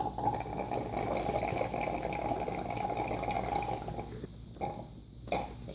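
A child sucking a drink up through a straw, liquid and air gurgling in the straw for about four seconds before it stops.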